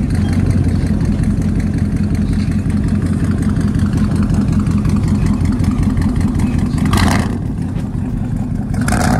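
Truck engine running with a steady deep rumble, with two short bursts of hiss about two seconds apart near the end.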